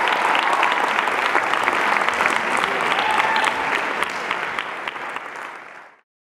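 Audience applauding, a dense clatter of clapping that fades over the last two seconds and then cuts off.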